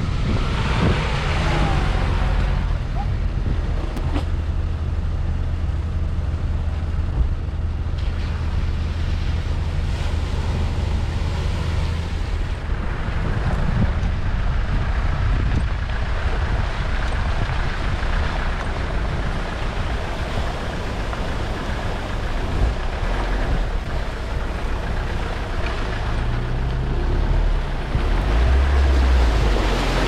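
Land Rover 4x4's engine running at low revs while driving a trail, under a steady rush of wind on the camera microphone, with an occasional knock from the vehicle. The engine note shifts near the end.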